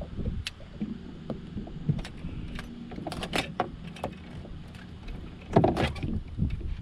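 Scattered clicks and knocks of fishing gear being handled against an aluminum boat's side rail over a low, steady wind rumble; the loudest knocks come a little before the end.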